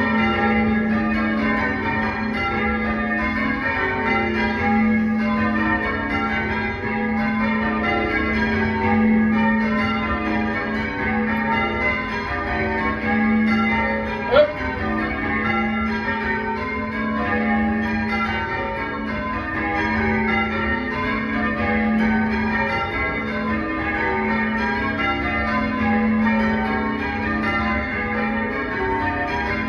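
Church bells being rung in changes, struck in a steady, even rhythm as the rows of bells follow one another, with a brief sharp click about halfway through.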